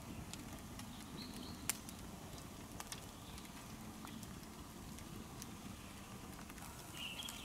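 Open wood fire burning, with a few scattered crackles and sharp pops over a low, steady rumble.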